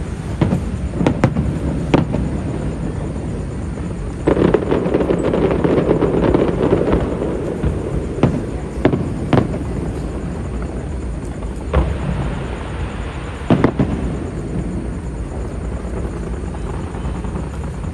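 Fireworks going off: scattered sharp bangs, with a dense burst of crackling starting about four seconds in and lasting a few seconds.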